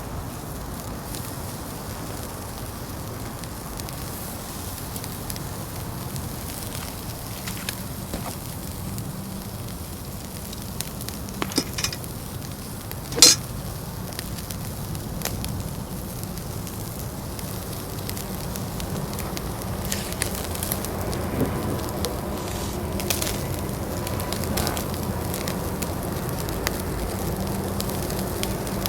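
A fire burning in a UNIFLAME Fire Grill, with food sizzling on the grate over it. A steady hiss with scattered crackles, including a few sharp pops about twelve to thirteen seconds in, the loudest of them.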